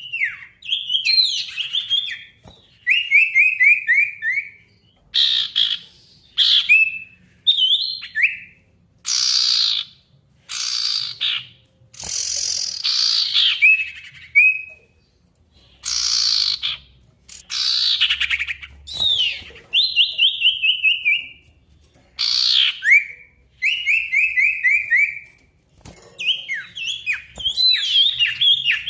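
Sirtu songbird singing loudly in 'gacor' form: phrases every second or two, alternating fast runs of repeated down-slurred notes with longer sweeping whistles, the kind of rival-calling song used to provoke silent sirtu into singing.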